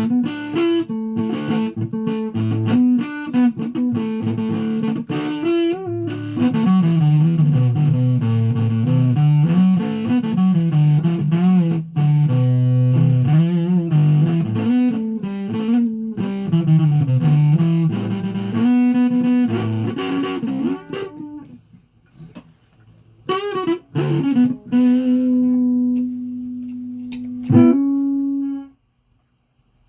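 Guitar being played: a wandering single-note melody with sliding, wavering pitches over low bass notes. It thins to scattered notes about two-thirds through, then one held note rings and stops abruptly near the end.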